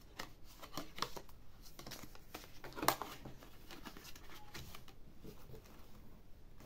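Paper and cardstock of a handmade junk journal rustling and clicking as a small picture card is handled and slid into a paper pocket, with a sharper snap about three seconds in.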